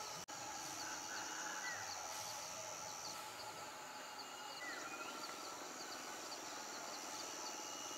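Rural outdoor ambience: a steady high-pitched drone with a few short rising bird chirps scattered through it. The sound cuts out for an instant just after the start.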